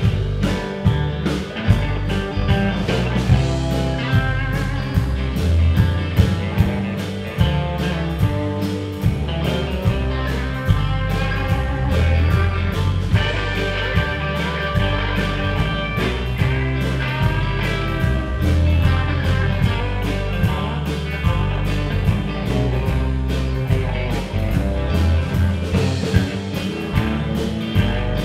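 Live rock band playing a blues-tinged song: electric guitars over bass guitar and a drum kit keeping a steady beat.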